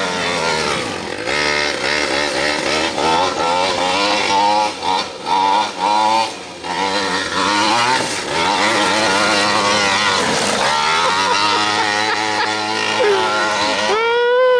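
The 49cc two-stroke reed-valve engine of a 1/5-scale RC monster truck running at changing throttle, revving up and down as the truck is driven. There are a few quick throttle lifts about five seconds in, and a sharp rev that rises and falls near the end.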